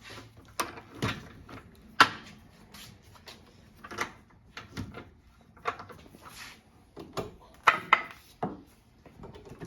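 Irregular knocks, clicks and rattles of an angle grinder with a belt sander adapter being handled and set up, about a dozen sharp strokes spread unevenly, with no motor running.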